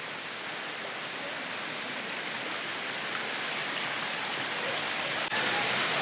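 Steady rushing of a rain-swollen creek, growing slowly louder, with an abrupt jump in loudness about five seconds in.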